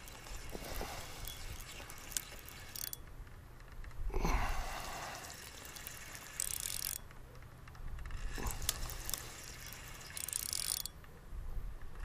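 Fishing reel being cranked, its mechanism clicking, as a hooked fish is reeled in, with two short bursts of hiss.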